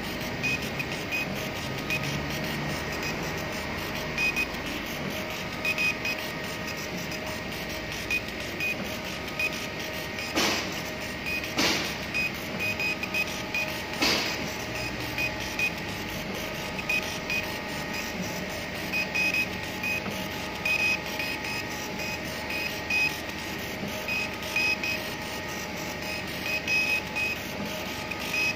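CNC laser engraver's head-moving stepper motors whirring in short stop-start bursts as the head traces lettering in wood, over a steady machine hum. Three sharp clicks come in the middle.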